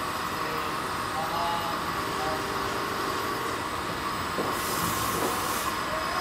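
Steady industrial machinery noise with a few faint squeaks, and a burst of high hiss about four and a half seconds in.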